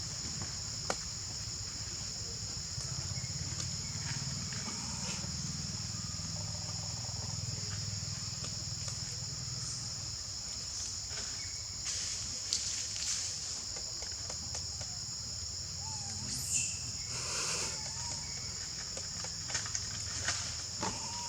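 Steady high-pitched chorus of insects shrilling without a break, with a few brief, louder sounds in the second half.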